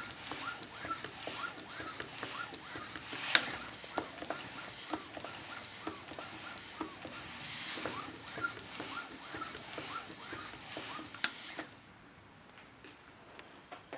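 Small twin-cylinder steam boat engine running slowly on steam, with irregular knocking from its unadjusted bearings and bursts of steam hiss from the loose piston rod glands. The running stops about twelve seconds in, leaving only a few faint clicks.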